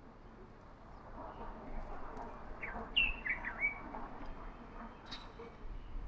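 Birds chirping: a quick run of short chirps about three seconds in, over a soft, steady background rush.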